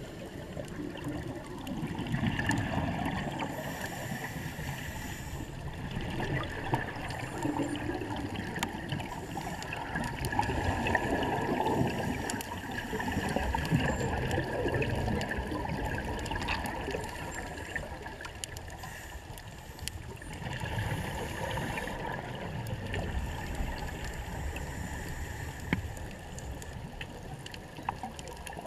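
Underwater sound of scuba breathing through a regulator: a hiss on each inhale, then the bubbling gurgle of exhaled air, repeating every few seconds.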